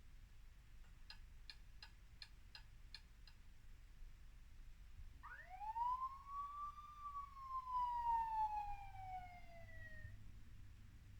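Small speaker of a Lego Ecto-1's add-on light-and-sound kit playing the Ecto-1 siren: one wail that rises quickly and then falls slowly over about five seconds. Before it comes a short run of about eight quick electronic ticks, roughly three a second.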